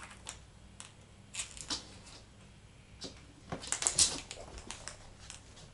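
A cat batting a Christmas tree ornament across a laminate floor: scattered light clicks and scrapes from the skittering toy and the cat's scampering paws, busiest about three and a half to four seconds in.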